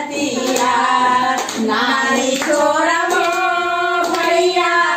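Women singing a traditional Chhath folk song together in long held notes, with hand claps keeping time.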